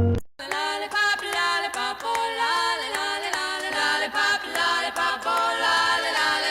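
Background music of a cappella singing, voices moving in short melodic phrases, starting abruptly just after a hard cut.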